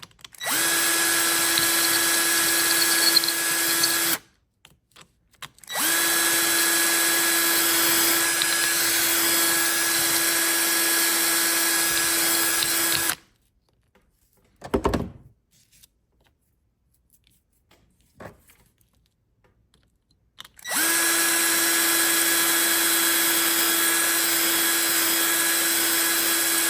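Electric drill running at a steady speed in three long runs with pauses between, drilling out the rivet of a pinball stand-up target. There is a short burst of the motor about 15 s in.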